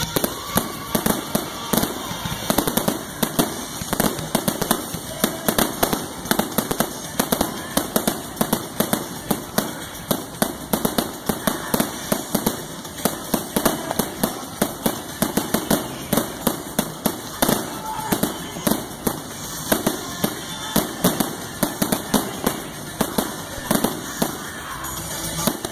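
Aerial fireworks going off in a rapid, continuous barrage: many sharp bangs and crackles each second as shells rise and burst overhead.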